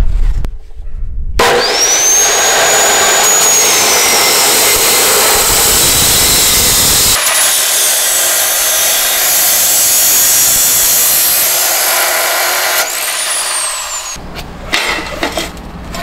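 Bosch abrasive cut-off saw cutting square steel tubing: the motor's whine rises as the disc spins up, then a loud, harsh grinding hiss as the disc bites through the metal, the whine falling away under load. The cutting stops about 14 seconds in, followed by a few light metal clinks.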